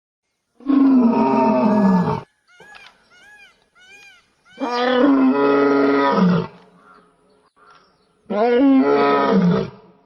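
A lion roaring: three long roars, each about one and a half to two seconds and dropping in pitch at the end, with short high chirps between the first two.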